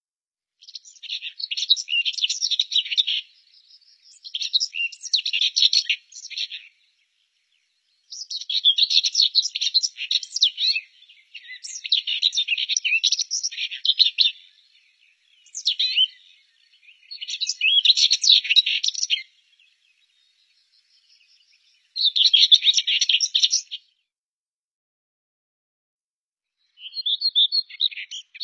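Common whitethroat (Sylvia communis) singing: about eight short bursts of quick, jumbled warbling song, each two to three seconds long, separated by brief pauses.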